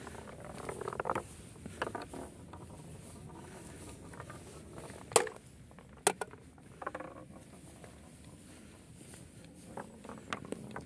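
A wooden ball rolling along a weathered wooden ball-run trough with a low rattling patter, and sharp wooden knocks as it drops and strikes the track, the loudest about five seconds in and another a second later.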